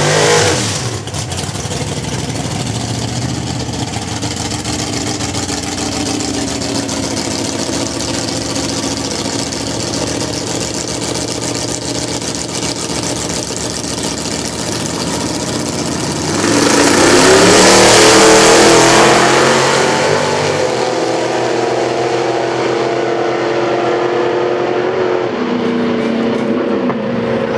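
Drag-racing car engines running at the staging lanes, steady with some revving. About sixteen seconds in, a much louder full-throttle launch surges for a few seconds, then settles back to a steadier engine sound.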